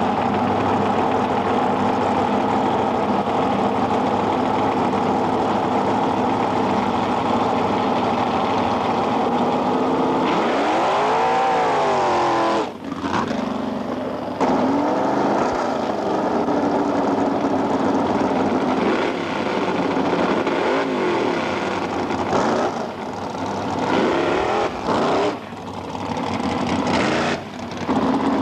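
Loud drag-racing car engine with an open fuel-injection stack, running steadily and then revved up and down a few times, the first about eleven seconds in.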